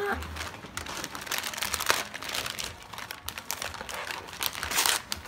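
Paper crinkling and rustling in irregular bursts as a wrapped gift is handled and unwrapped, loudest near the end.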